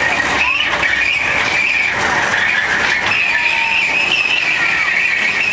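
A train running, with a steady high-pitched whine over its running noise.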